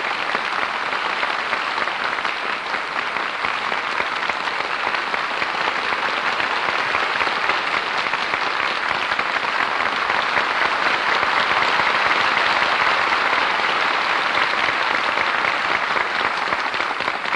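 Studio audience applauding, a dense, steady mass of clapping that swells a little in the middle.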